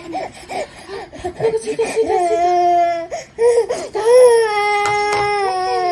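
A young child's drawn-out crying wails: a few short cries, then two long held cries that fall away at the end.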